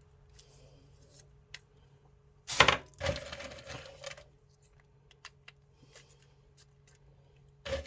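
A sharp knock of a kitchen utensil against a hard surface about two and a half seconds in, followed by about a second of clattering handling noise, with a few small clicks around it while a peanut-butter bagel is being worked.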